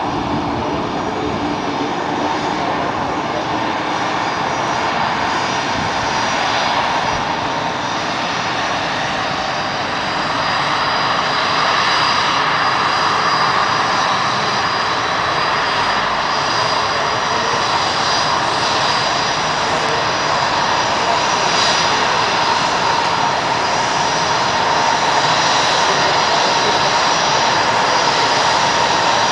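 Airliner jet engines running at low power: a steady turbine whine over a broad rush, growing a little louder about ten seconds in.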